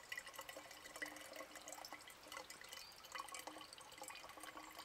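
Filtered water dripping and trickling faintly from a Sawyer Micro Squeeze water filter into a stainless steel container: scattered small drips as the filter is squeezed.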